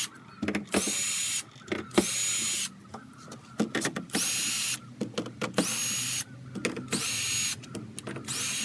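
Cordless drill-driver backing screws out of a timber door insert, in about six short bursts of the motor, each whirring up to a steady high pitch and stopping, with clicks and knocks of handling between them.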